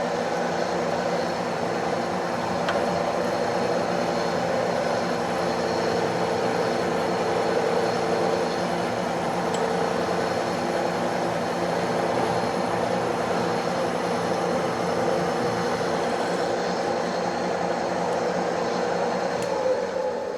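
Metal lathe running steadily while a centering drill cuts into the workpiece to bring an off-centre hole back on centre. The machine sound is steady, with an even hum.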